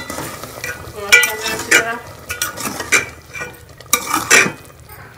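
Metal spoon stirring and scraping tomatoes, green chillies and spices in a metal pot, with several irregular scraping strokes, while the masala sizzles in oil as it is fried. The stirring gets quieter near the end.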